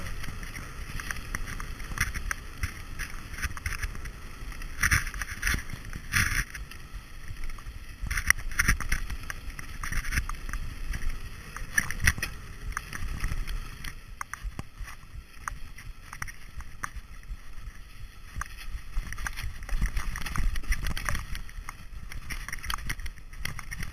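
Mountain bike riding fast down a dirt and gravel trail: wind buffeting the camera microphone, with the constant rattle and short knocks of the bike over the rough ground.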